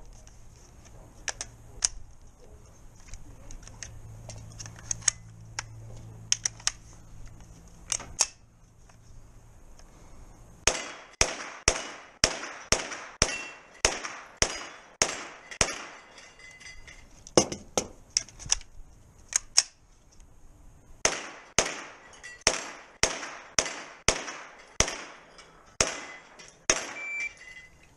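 Pistol-caliber carbine firing: a few single shots over the first ten seconds, then two fast strings of shots at about two a second, the first starting about ten seconds in and the second about twenty-one seconds in.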